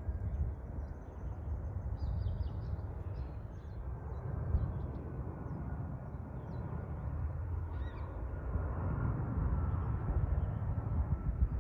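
Wind rumbling on the microphone, with faint bird calls in the first few seconds. A distant jet aircraft's drone grows steadily louder through the second half.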